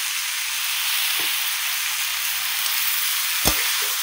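Winged beans, carrots and straw mushrooms sizzling in hot oil in a wok, a steady frying hiss, with one sharp knock about three and a half seconds in.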